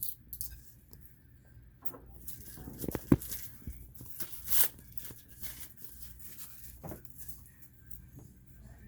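Packaging and parts being handled: irregular rustling and light clicks, with a sharp knock about three seconds in and a louder rustle a little after.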